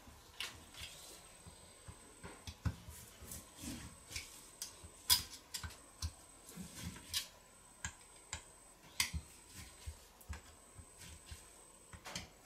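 Scattered light clicks and taps of small metal carburetor parts being handled and fitted, as the power valve is reinstalled in a Solex carburetor body.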